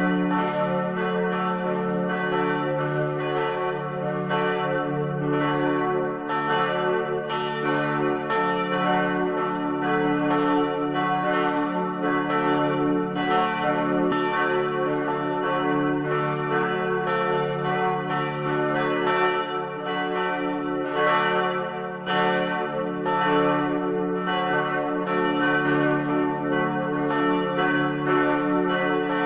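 Church bells ringing, a steady run of strokes about one or two a second, each ringing on into the next.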